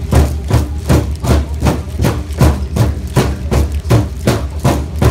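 A large drum struck in unison by a circle of seated drummers, a steady beat about two and a half times a second, over a steady low hum.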